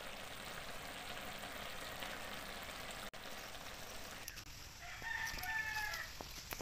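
A rooster crowing once, a drawn-out call of about a second and a half starting nearly five seconds in, after a steady hiss.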